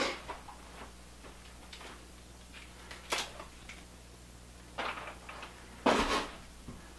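A few scattered clicks and knocks from hands handling parts and cables on a bicycle frame around a newly fitted mid-drive motor. The loudest is a longer knock and rattle about six seconds in.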